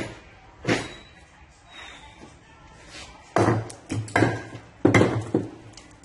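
Sledgehammer blows on the concrete counterweight of a washing machine tub: a couple of lighter knocks, then three heavy strikes in quick succession, each with a short ring.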